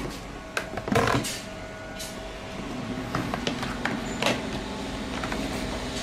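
Hard plastic knocking and clicking as baby feeding bottles are set into the plastic rack of a microwave steam steriliser: a handful of light taps, with a louder knock about a second in.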